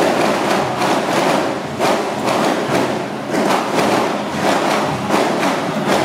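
Loud, irregular thuds with a sharp crash-like edge, roughly two a second, over a dense steady din.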